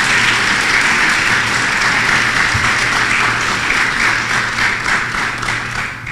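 Audience applauding: many hands clapping steadily, thinning out near the end.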